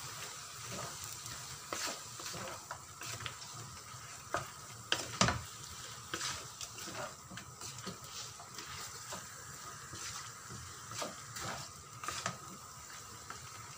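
Wooden spatula stirring and scraping chicken and potato pieces around a non-stick pan, with many short knocks of the spatula on the pan and a steady sizzle underneath. The loudest knocks come about five seconds in.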